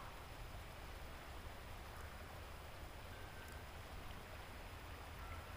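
Faint, steady rush of flowing river water, with a low rumble underneath.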